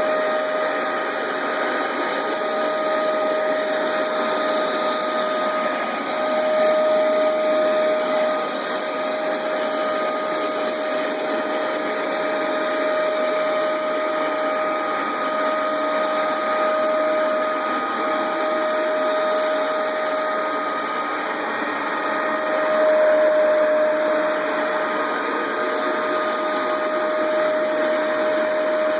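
Hoover Max Extract 77 carpet deep cleaner running: a steady motor whine with a held pitch over a wide rushing hiss. It gets louder twice, about seven seconds in and again near the twenty-three-second mark.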